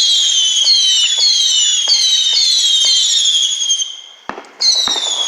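Whistling fireworks: overlapping high-pitched whistles, each falling slowly in pitch, with a new one starting about every half second. About four seconds in the whistling breaks off, two sharp pops go off, and the whistling starts again.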